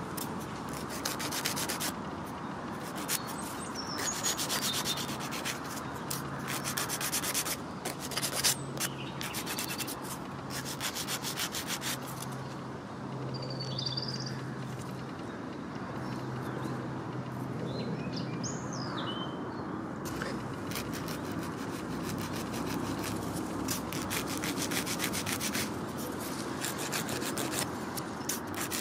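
A manual nail file rasping back and forth across a dog's black toenail, in runs of quick, even strokes with short pauses between them.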